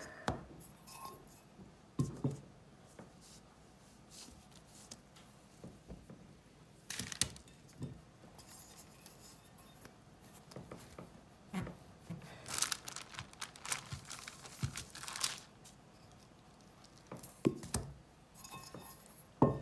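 Wax paper crinkling and a metal bowl scraping as the bowl is pressed and twisted down through a sheet of cloud dough, in scattered short bursts with a few light taps.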